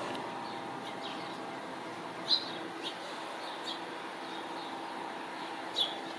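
Northern cardinal giving short, sharp chip notes, about six scattered irregularly, the loudest a little past two seconds in and another near the end. A steady low background hum runs underneath.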